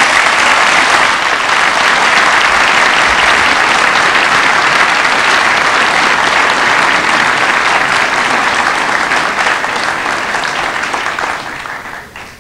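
A large seated audience applauding, a dense steady clapping that dies away near the end.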